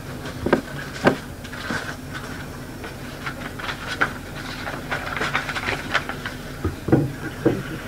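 Scattered knocks and rustles of things being handled, likely on the table, over the steady hiss and low hum of a tape recording.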